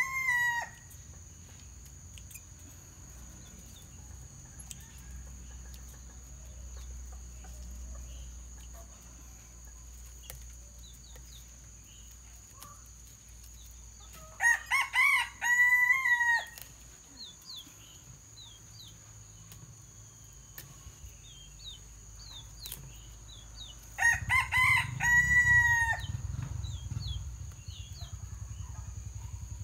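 A rooster crowing three times, about ten seconds apart: the end of a crow right at the start, then full crows about 15 and 25 seconds in. Between the crows there is a steady high thin tone, and a low rumble comes in with the last crow and continues to the end.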